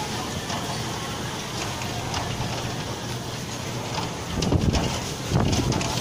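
Strong typhoon wind blowing over the microphone, with louder gusts buffeting it about four and five seconds in, over a steady hiss of heavy rain and the noise of street traffic.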